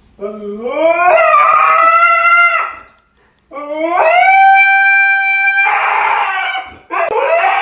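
A husky howling: two long howls that each rise in pitch and then hold steady, the second turning rough near its end, and a third beginning near the end that slides down in pitch.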